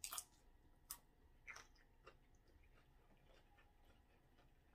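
Close-up chewing of crunchy tortilla-chip nachos: a few sharp crunches in the first two seconds, the loudest right at the start, then fainter chewing with small clicks.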